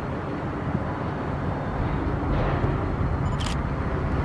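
EMD diesel locomotive running as it approaches slowly with a freight train, a steady engine and rolling-wheel noise. A short, sharp high click about three and a half seconds in.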